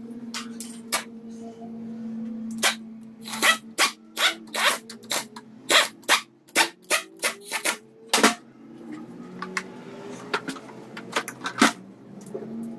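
A pneumatic wrench run in short bursts, about two a second, running down the crankshaft main bearing cap bolts. A few more single bursts follow later, over a steady low hum.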